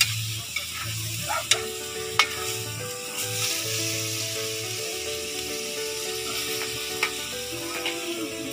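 Thin noodles and vegetables sizzling in a metal wok, stirred with a metal ladle that clicks and scrapes against the pan now and then.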